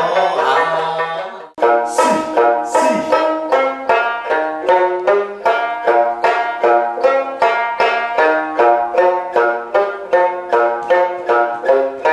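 An Okinawan sanshin, its snakeskin-covered body plucked with a plectrum, plays a brisk tune of evenly paced notes, two or three a second. It starts after a held note fades and breaks off sharply about a second and a half in.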